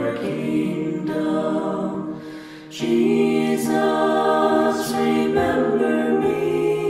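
Choir singing a slow chant a cappella in long held notes, with a short breath pause between phrases about two and a half seconds in.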